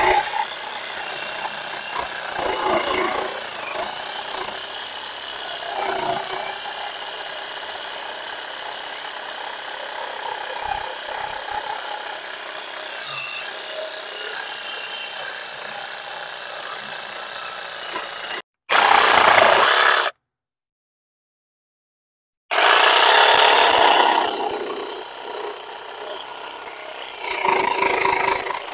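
Cordless brushless reciprocating saw running with a steady motor whine as its blade saws through wood. About two-thirds of the way in the sound cuts out completely for a couple of seconds, with a louder, rougher stretch of sawing just before and after the gap and again near the end.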